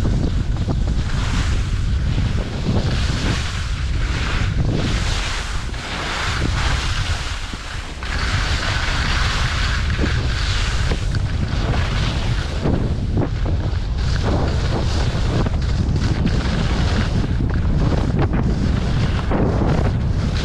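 Wind buffeting the microphone during a fast downhill ski run, a steady low rumble, with skis hissing and scraping over soft, chopped-up snow.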